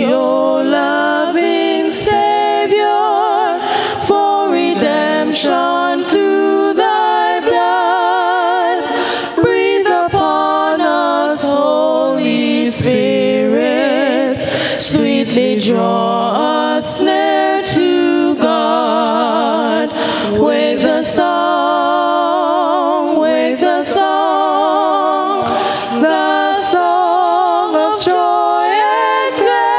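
A cappella vocal trio, one man and two women, singing in harmony through handheld microphones, the held notes wavering with vibrato.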